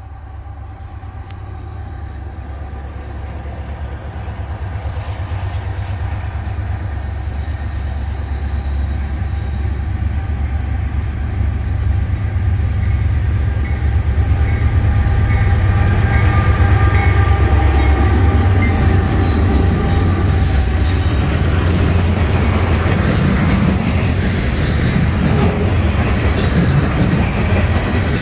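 A Norfolk Southern diesel freight train approaching: the locomotives' low rumble and a steady whine grow louder over the first half. Then, from about two-thirds of the way in, loaded trash cars roll past close by with rattling and wheel clatter on the rails.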